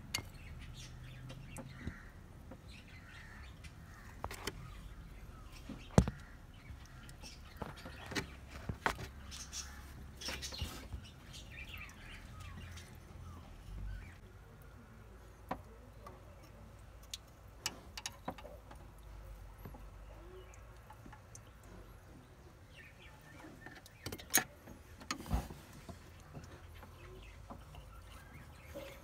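Scattered clicks and knocks of hands and tools working around the oil filter and oil cooler mount under a car engine, with one sharp knock about six seconds in and two more near the end. Birds chirp faintly in the background.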